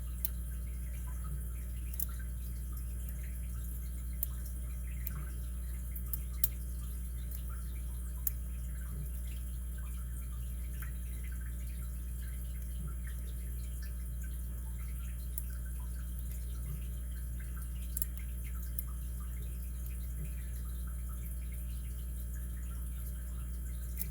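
Sparse small clicks and ticks of a lock pick and tension wrench working the pins of a 5-pin brass padlock, with a few sharper clicks about six, eight and eighteen seconds in, over a steady low hum.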